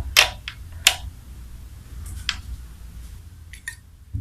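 Several sharp, separate metallic clicks as a sewing machine's shuttle and bobbin case are handled and fitted back into place.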